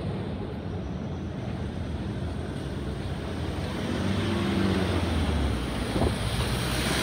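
Road traffic moving over the level crossing: a steady rush of vehicles, with a heavier engine rumble building from about four seconds in as a vehicle pulls away.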